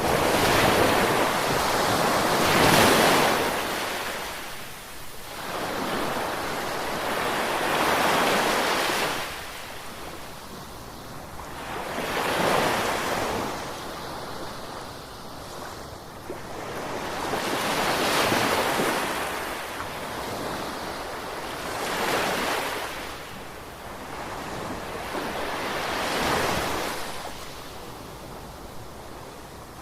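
Ocean waves breaking and washing up on the shore in slow surges. Each wave swells to a hissing crash and then fades, about every four to five seconds.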